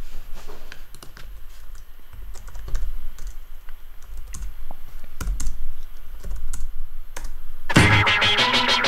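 Keystrokes on a computer keyboard, irregular clicks as a shell command is typed out. Near the end, loud guitar music starts up suddenly.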